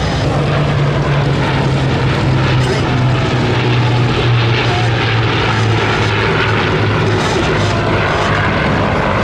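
Rolls-Royce Merlin piston-engined warbird flying past in display: a loud, steady propeller-engine drone whose pitch sinks slowly as it goes by.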